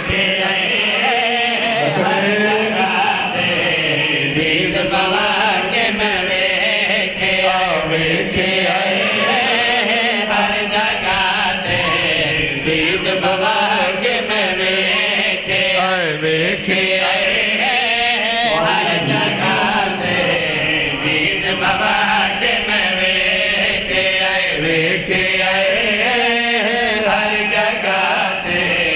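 Group of men chanting a devotional qasida together through microphones, the voices rising and falling without a break.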